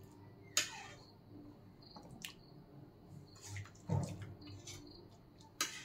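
Thick curry being served into a glass bowl: a few sharp clinks against the glass and soft wet drips, with a dull knock about four seconds in.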